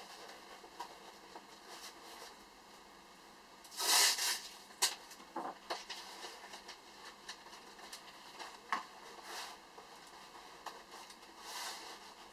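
Handling noises: scattered light clicks and rustling, with a short, louder rustle about four seconds in and another near the end.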